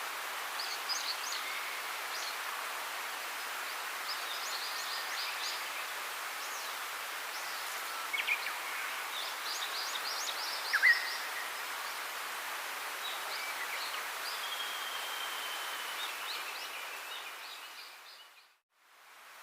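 Birds chirping and calling over a steady hiss of outdoor ambience. The sound fades out near the end and then starts to fade back in.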